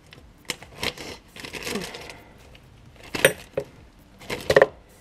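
Small metal parts clinking together as they are dropped into a plastic zip-lock bag, with the bag rustling. A few light knocks come first, then sharp clinks about three seconds in and a quick cluster near the end.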